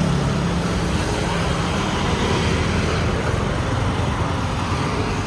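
Road traffic noise: vehicle engines running with a steady low rumble.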